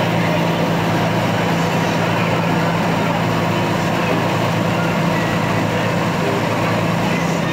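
Passenger boat's engine running steadily underway, heard from on board as a constant low drone.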